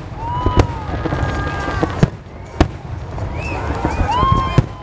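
Aerial fireworks shells bursting in a display, with several sharp bangs over a continuous low rumble and echo.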